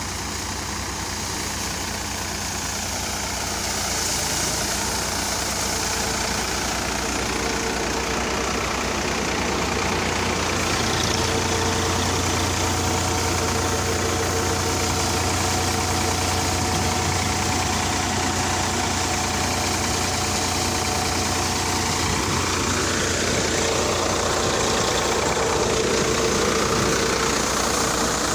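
Sonalika Tiger tractor engine running steadily, driving a thresher, with the threshing machinery adding a steady hum.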